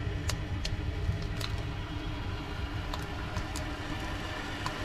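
Wood fire burning in a Winnerwell tent stove: a steady low rumble with scattered sharp crackles and pops from the burning wood.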